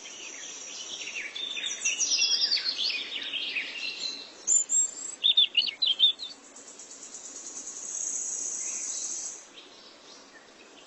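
Small birds chirping and calling, with runs of quick falling chirps in the first few seconds and a cluster of sharp calls around four to six seconds in. A steady high-pitched buzz sits under the birds near the start and again toward the end.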